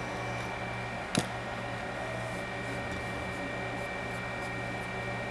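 Steady low mechanical hum of room equipment, such as a fan or air conditioner, with a faint high whine over it and a single sharp click about a second in.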